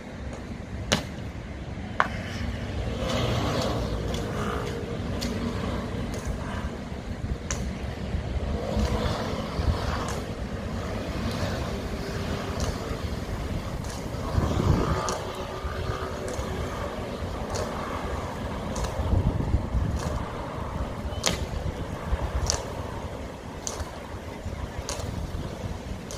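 Steady outdoor rumble like passing road traffic, swelling twice, with a scattered handful of sharp clicks.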